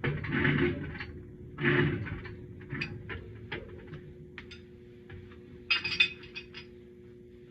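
Small metal parts being handled: scattered light clinks and taps, with a quick cluster of louder clinks about six seconds in, over a faint steady hum.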